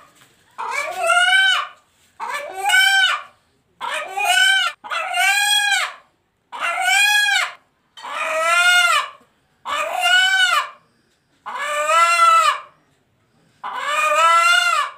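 White Egyptian baladi rooster, held in a person's hands, calling again and again about every second and a half, each call a short note that rises and falls in pitch. Its owner hears the call as the rooster saying 'Allahu akbar'.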